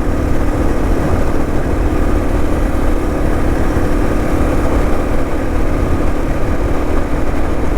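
A vehicle engine running at a steady speed, a constant drone with a steady hum under an even rush of road and wind noise.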